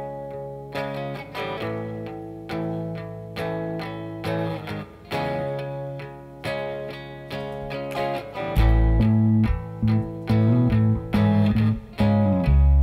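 Electric guitar picking chords that ring out and fade, one after another. About two-thirds of the way in a bass guitar comes in with a low line, and the music gets much louder.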